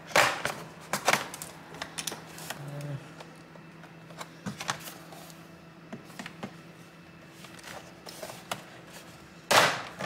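Plastic retaining clips of a Lenovo 520-15IKB laptop's bottom cover snapping loose as the cover is pried and worked off: a series of sharp, irregular clicks. A longer, louder scraping burst comes near the end as the cover comes free.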